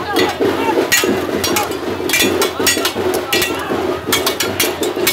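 Sticks and blades clashing in a mock fight: sharp clacks, some with a brief high metallic ring, at an irregular two or three a second, over a crowd's chatter.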